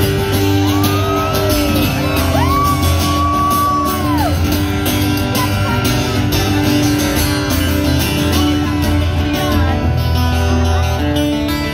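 Live acoustic guitar and band playing through a large outdoor PA, with no vocals. In the first few seconds someone in the crowd shouts two long, high cheers over the music.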